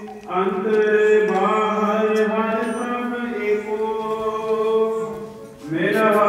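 Gurbani kirtan: a male voice singing a Sikh hymn in long held notes over a steady sustained accompaniment. The phrase fades out briefly near the end and a new one begins with a rising note.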